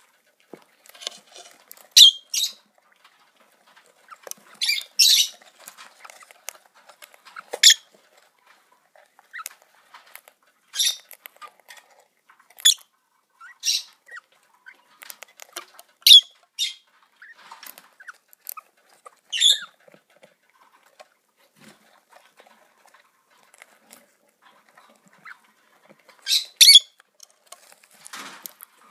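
Peach-faced lovebird chicks in the nest squeaking: about a dozen short, high-pitched calls at irregular intervals, some coming in quick pairs.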